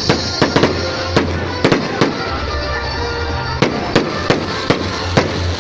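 Fireworks going off in a rapid, irregular run of sharp bangs, about two a second, over a steady hiss of crackling.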